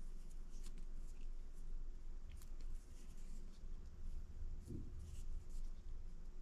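Faint scratchy rustling and light ticks of backing line being wrapped by hand in loops around fly line to tie a nail knot, with a soft low bump about three-quarters of the way through.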